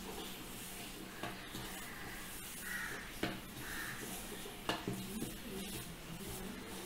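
Hand kneading ragi (finger millet) dough in a stainless steel bowl: soft squishing and scraping of the dough against the steel, with a few light knocks on the bowl.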